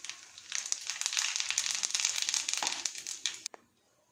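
Mustard seeds crackling and popping in hot oil, a dense run of small pops that cuts off suddenly about three and a half seconds in. This is the tempering (tadka) stage, the sign that the oil is hot enough.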